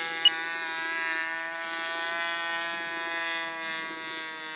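Glow-fuel engine of a radio-control model airplane running at a steady pitch in flight at reduced throttle, holding on without flaming out. It fades slightly near the end. A short sharp click sounds about a third of a second in.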